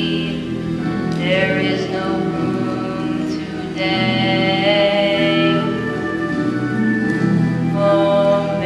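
Children singing a slow song, holding long notes.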